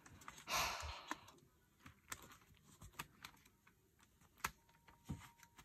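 Faint scattered clicks and taps from hands handling a K-pop album and its plastic packaging, with a short soft rustle about half a second in.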